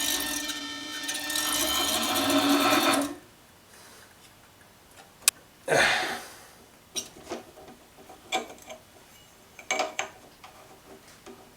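Harbor Freight 7x10 mini lathe running with aluminium tube stock spinning in the chuck, a steady motor whine that cuts off suddenly about three seconds in. Then a few scattered clicks and knocks of handling.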